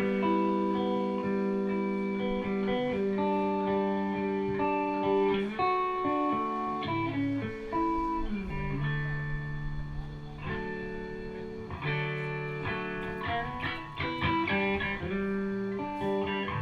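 Guitar playing a jam of held notes and chords that change every second or so.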